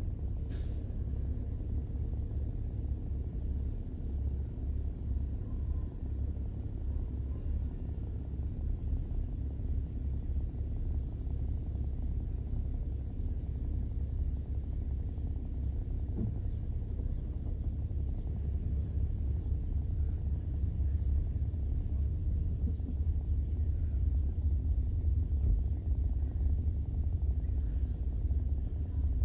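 Car driving along city streets: a steady low road and engine rumble, growing slightly louder near the end, with one brief click about half a second in.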